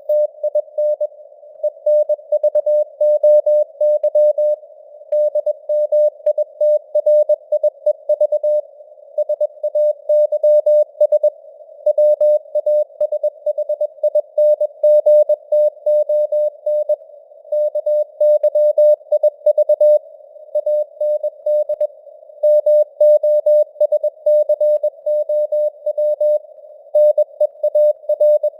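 Morse code (CW) tone keyed at 21 words per minute, sending news headlines as a stream of short and long beeps with gaps between letters and words. A narrow band of simulated radio hiss sits around the tone, and the signal strength fades up and down like QSB on the air.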